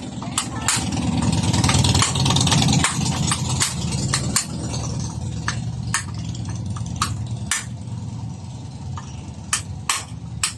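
A motor starts up, swells for a couple of seconds and then runs steadily, with sharp clicks and knocks over it.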